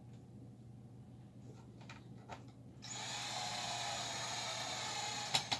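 Electric screwdriver running steadily for about two and a half seconds as it drives a screw into the back of an amplifier case, then stopping; a few light clicks come before it and a couple of sharp clicks just after it stops.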